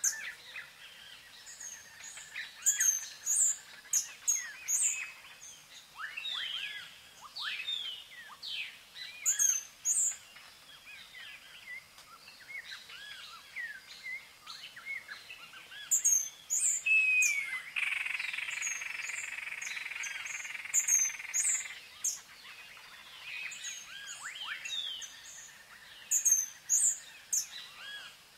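Several small birds chirping and calling, with quick very high chirps coming in short runs every few seconds among lower, sliding calls. A steady hiss lasts about four seconds past the middle.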